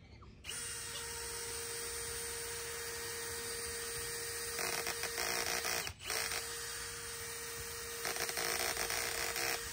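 Milwaukee Fuel cordless drill spinning a paddle bit into a wooden gate post to bore a pilot hole for a hinge hanger: a steady motor whine that stops briefly about six seconds in and starts again, turning louder and rougher twice as the bit bites into the wood.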